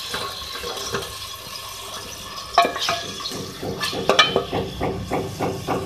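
Beef pieces sizzling in hot oil in an aluminium pot while a wooden spatula stirs them, scraping and knocking against the pot; the knocks come thick and fast from about two and a half seconds in.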